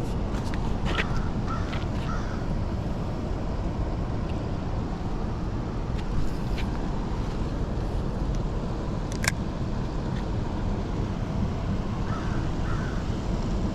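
Steady rushing noise of tailwater flowing below a dam, with a bird calling in a few short bursts soon after the start and again near the end, and one sharp click about nine seconds in.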